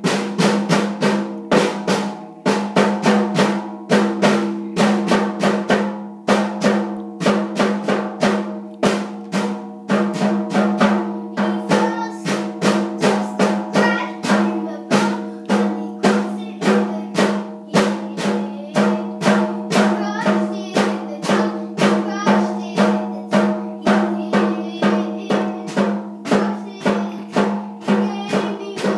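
Child's junior drum kit played continuously with fast, uneven strikes on the small toms, bass drum and cymbal, several hits a second, over a steady ringing tone.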